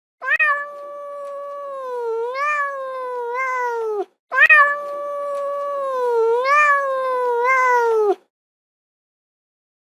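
Domestic cat giving two long, drawn-out meows of about four seconds each, back to back. In each, the pitch dips and rises in the middle and falls away at the end. The second call is an identical repeat of the first.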